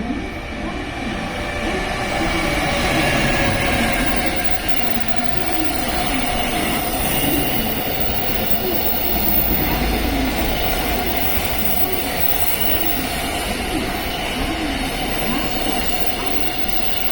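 Electric train running along the platform: a steady rumble of wheels on rail with a faint steady whine, growing louder about three seconds in and again near ten seconds.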